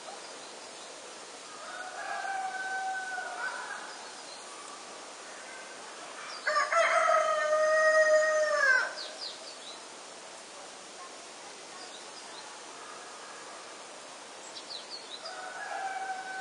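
Rooster crowing: one loud crow of about two seconds near the middle, dropping in pitch at its end, with fainter crows about two seconds in and near the end. There are also a few short, high bird chirps.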